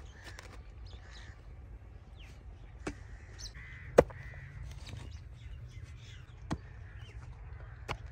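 A hoe blade striking and chopping into hard, dry soil while a pit is dug, about four sharp strikes a second or two apart, the loudest about halfway through. Crows cawing in the background.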